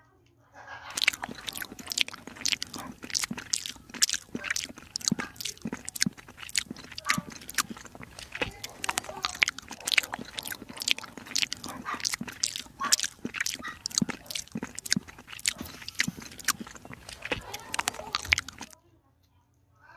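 A kitten chewing and smacking on chunks of wet cat food: a quick, uneven run of close, wet clicks and smacks that starts about a second in and stops suddenly near the end.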